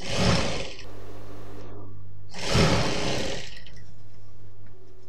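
Industrial sewing machine stitching in two short fast runs about two seconds apart, its motor humming steadily between them until it eases off near the end.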